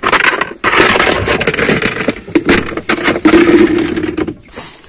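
A car's engine running as the car pulls away over gritty pavement, with crackling tyre noise. It starts suddenly and dies away near the end.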